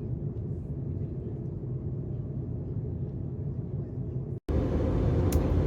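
Airliner cabin noise in flight: a steady low rumble of engines and airflow. About four and a half seconds in it cuts off for an instant and comes back louder, with more hiss.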